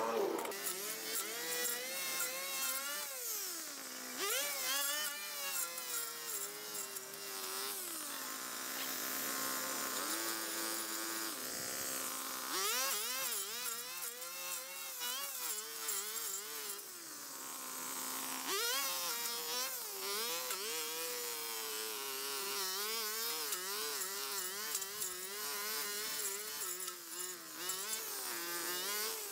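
A small petrol engine with a buzzing note, revving up and easing off again and again. It drops to a lower steady pitch twice, about a third of the way in and again after the middle, then picks back up.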